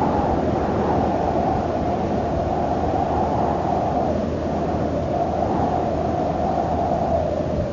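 Steady low rushing wind, swelling and easing slowly, as heard in gliding flight.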